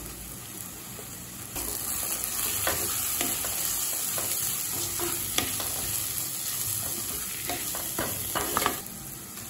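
Onions, tomatoes and spice powders sizzling in oil in a kadai. From about a second and a half in, a spatula stirs and scrapes them around the pan, the sizzle gets louder, and scraping strokes come thickest near the end as the masala is sautéed.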